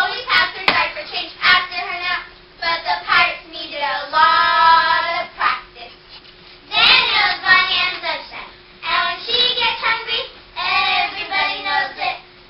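A children's verse choir speaking a poem together in a rhythmic, sing-song chant, with small groups of voices taking turns. The phrases are broken by short pauses, and one long note is held about four seconds in.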